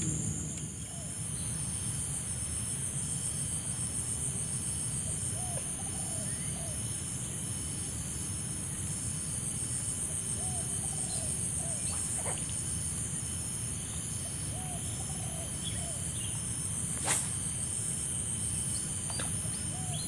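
Steady high-pitched chorus of insects over a low rumble, with a short call of three or four quick low notes from a wild animal repeating about every five seconds. A single sharp click about seventeen seconds in.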